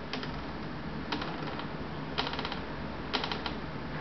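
Office door hinge creaking as the door is pulled open very slowly at constant speed. The stick-slip creak comes at a very low rate, as short trains of rapid ticks roughly once a second.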